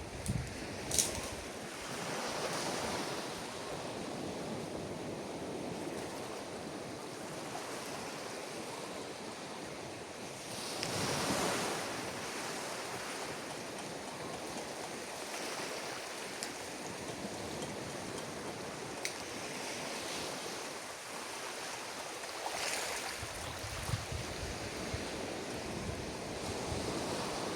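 Ocean surf on a beach: a steady wash of waves, with breakers swelling and fading several times, the loudest about eleven seconds in. A short sharp click comes about a second in, and a low wind rumble on the microphone comes near the end.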